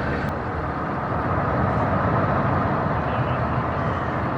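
Steady rumble and hiss of an inland cargo motor ship's diesel engine running under way, with no sudden sounds.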